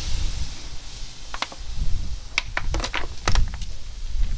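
Raw brisket searing on a charcoal kettle grill grate: a steady sizzle with scattered sharp crackles of fat popping, over a low rumble.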